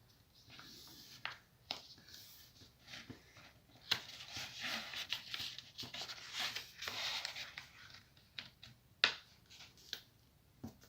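Sheet of paper being handled and folded by hand: rustling and crinkling, heaviest in the middle of the stretch, with a few sharp snaps of the paper, one near the start of the rustling and one about nine seconds in.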